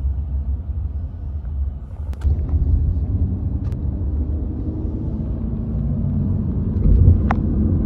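Steady low road and engine rumble inside a car's cabin while it drives, swelling a little near the end, with a few short clicks.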